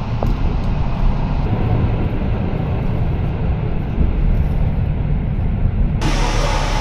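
Passenger train running on the rails: a steady low rumble with no speech. About six seconds in the sound abruptly becomes brighter, with more hiss.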